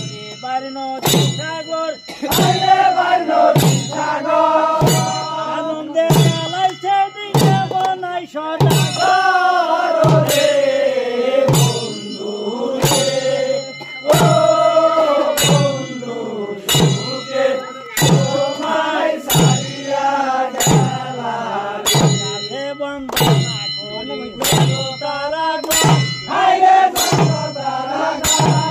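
A group of men singing a boitha maro boat-race chant over a steady percussion beat of sharp strikes, about three every two seconds.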